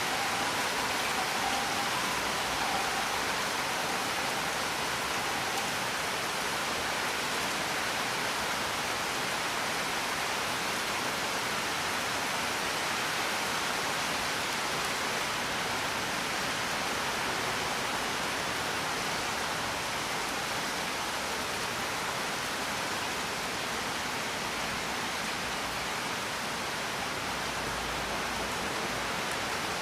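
Steady, even hiss of rain pouring down. Faint high tones fade out in the first few seconds.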